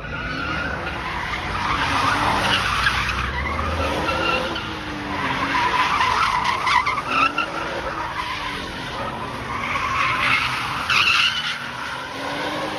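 A car doing donuts: its spinning tyres screech continuously while the engine revs, its note rising and falling several times as the car circles.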